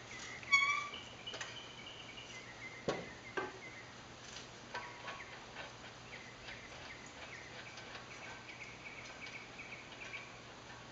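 A metal clink with a short ringing about half a second in, then two light knocks near three seconds, as the propeller nut and hub parts are worked off the shaft. Faint high insect chirping runs underneath.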